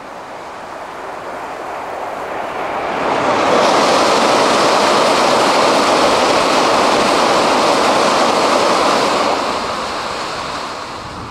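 Tokaido Shinkansen Nozomi bullet train, an N700-series set, passing at high speed over a steel truss bridge: a rushing noise that swells over the first few seconds, holds loud for about six seconds, then dies away.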